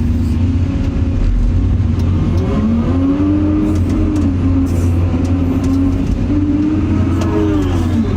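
Excavator diesel engine running under load as it digs clay, its pitch rising about two and a half seconds in, holding, then falling back near the end.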